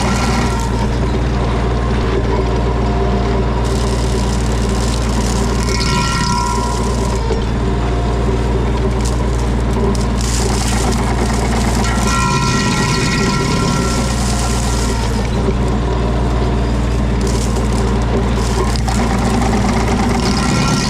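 Tractor engine running steadily while driving a PTO-powered MechMaxx stump grinder. The pitch and load shift a little about six and twelve seconds in.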